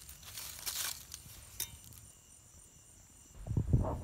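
Crickets trilling faintly and steadily, with brief rustles of leaves and undergrowth in the first second or two and a few low thuds near the end.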